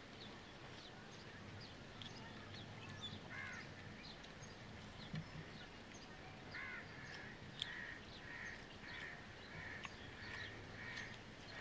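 A crow cawing in a run of about seven calls, roughly two a second, starting about six seconds in. Under it, faint scattered clicks of eating by hand and chewing.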